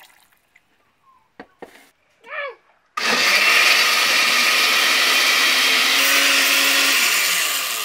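Electric blender switched on about three seconds in, running steadily at high speed as it purées roasted tomatoes and chiles with a little water into salsa, then beginning to wind down near the end. Before it starts, a couple of light clicks.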